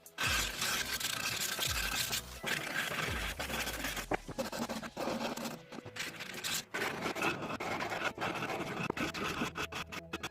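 Scraping and rubbing on a wooden workpiece, a continuous rasping texture broken by many small clicks.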